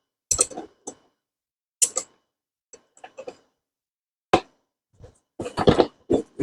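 Scattered clicks and knocks of metal parts and tools being handled while fitting the blade and flange onto an electric concrete saw. There is one sharp click about four seconds in and a flurry of louder knocks near the end.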